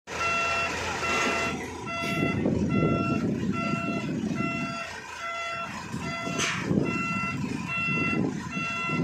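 Wheel loader's backup alarm beeping steadily, about one and a half beeps a second, over the loader's engine working as it lifts a steel roof truss, its sound swelling and easing. A short sharp noise comes about six and a half seconds in.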